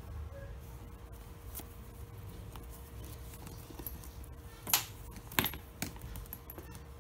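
Handling noise from a leather shoulder bag: a hand rustling and rubbing inside its fabric lining, with a few sharp knocks or clicks in the last third, the first of them the loudest. A faint steady hum runs underneath.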